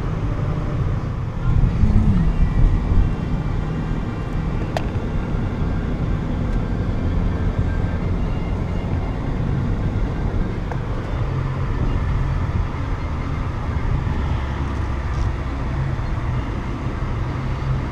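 Steady low rumble of motor-vehicle road noise, with a brief louder swell about two seconds in.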